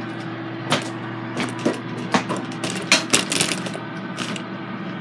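Clicks and knocks of a phone being handled and carried, loudest and most frequent in the middle, over the steady hum of a Power XL air fryer running.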